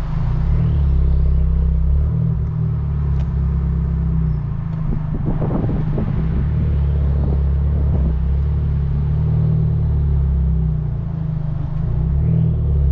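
Abarth 595 Turismo's turbocharged 1.4-litre four-cylinder engine and exhaust droning steadily on the move. There is a brief rougher, noisier stretch about five seconds in.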